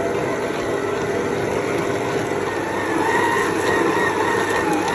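Electric mixer motor running steadily as it kneads batbout bread dough, its whine growing louder about three seconds in.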